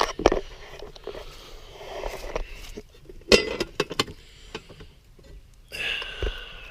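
Sharp metallic clicks and clunks of an outdoor air-conditioner electrical disconnect box being opened and handled, to check whether it is why the condenser has no power.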